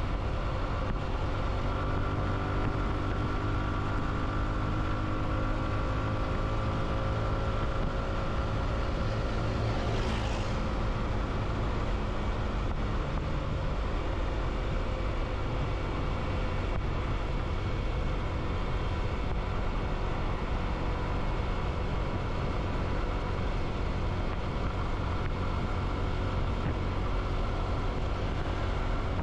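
Motorcycle engine running steadily while riding, under a constant low rumble of wind and road noise. The engine's pitch drifts a little during the first dozen seconds, and there is a brief hiss about ten seconds in.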